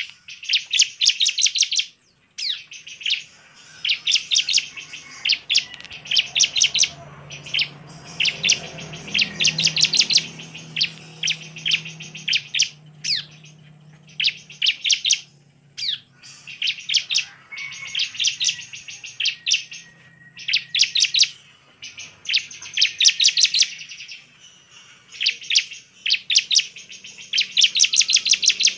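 Bar-winged prinia (ciblek) singing in its full, vigorous 'gacor' form: bursts of rapid, sharp chirps about a second long, repeated over and over with short pauses between them. This is the kind of agitated song keepers play to provoke other ciblek into singing.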